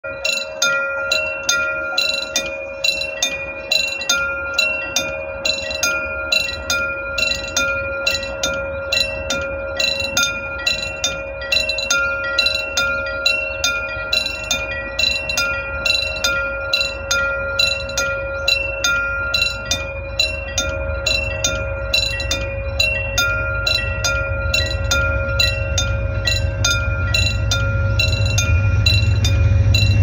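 Analog (mechanical) warning bell of a Korean railway level crossing, struck about twice a second with a steady ringing tone, signalling that a train is coming. A low rumble grows louder through the second half as the train approaches.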